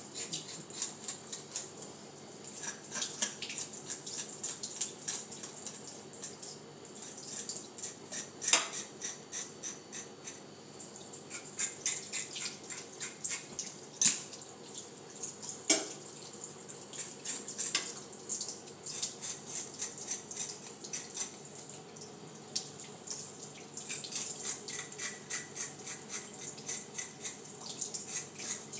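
Kitchen tap running into a stainless-steel sink while whole fish are scraped with a fork to remove their scales: quick, scratchy strokes several times a second over the water. There are a few louder knocks against the sink in the middle.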